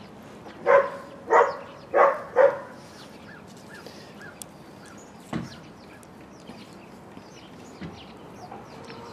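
An animal calling four times in quick succession, loud and about half a second apart, followed by faint bird chirps.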